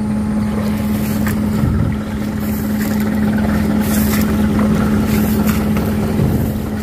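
Kato crawler excavator's diesel engine idling at a steady pitch, with brief rustling now and then as someone walks through tall grass.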